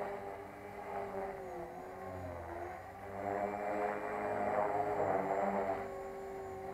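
HK450 Pro flybarless electric RC helicopter in flight, its rotor and motor whine steady with a brief dip in pitch around two seconds in, then louder from about three seconds.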